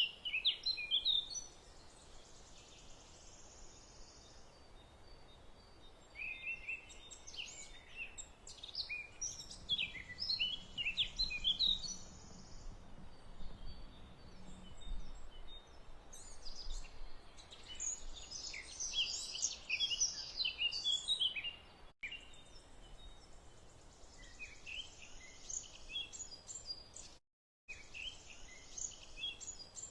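Small birds chirping and singing in scattered bursts over a faint steady background hiss; the sound cuts out completely for a moment near the end.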